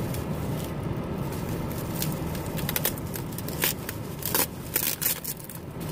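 Packaging handled by hand: a few scattered crackles and rustles, more of them in the second half, over a steady low hum.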